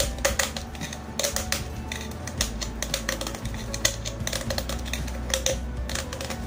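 A thin aluminium beer can being cut with a metal blade: an irregular run of sharp clicks and scratches as the blade saws and punctures the can wall.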